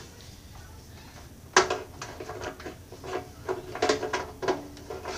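A bread maker's power cord and plug being handled over the machine, knocking against its stainless-steel body and pan. One sharp knock about a second and a half in, then a string of irregular lighter clicks and clatters.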